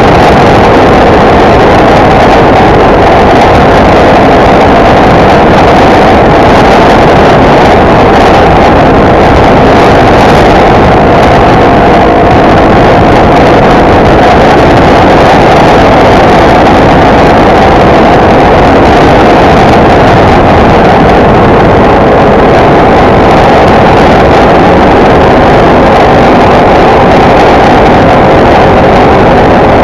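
Motorcycle riding at highway speed: the engine runs at a steady pitch under a dense rush of wind and road noise. The sound is loud and even, with no changes.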